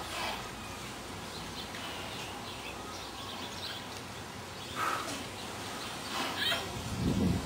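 Open-air ambience: a steady background hush with a few short high calls, about at the start, near five seconds and again a little after six seconds.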